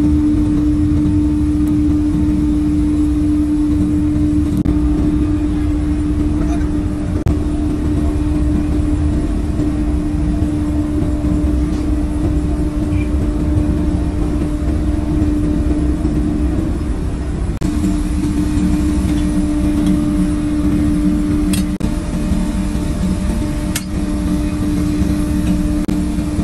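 A machine running steadily with a constant hum over a low rumble, with a few sharp clicks in the second half.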